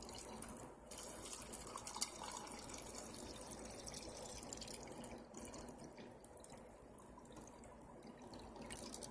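Water being poured into a tall glass vase of roses and glass gems: a faint, steady trickling pour that starts about a second in and slowly tapers off.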